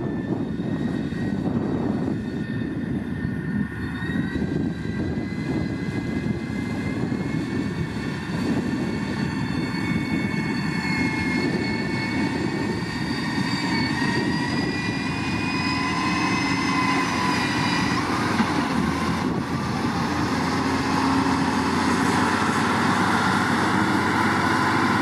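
Sany STG190C-8S motor grader's diesel engine running steadily under load while the blade works gravel. A whine climbs slowly in pitch over more than ten seconds, then drops away about three-quarters of the way through.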